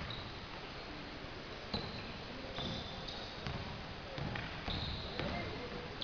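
Basketball bouncing on a wooden gym court, a few irregular thumps, mixed with short high-pitched squeaks of sneakers on the floor.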